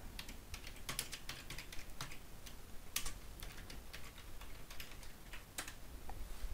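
Someone typing on a computer keyboard: a run of faint, irregularly spaced keystroke clicks.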